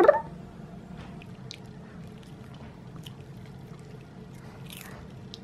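Soft chewing and faint scattered clicks as a small dog bites at a pea pod, over a steady low hum.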